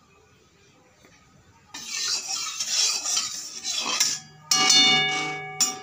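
A metal spatula scraping around inside a metal kadai, then striking it about four and a half seconds in so that the pan rings for about a second before it is stopped.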